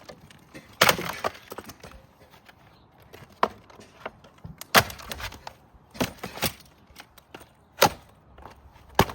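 The brittle plastic housing of a Goldair GSFH220 fan heater being struck hard, about six or seven sharp blows at uneven intervals, each cracking and shattering the plastic with a short crackle after it.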